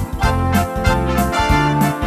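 Upbeat background music with a steady beat, led by an electric piano or keyboard with a pulsing bass line.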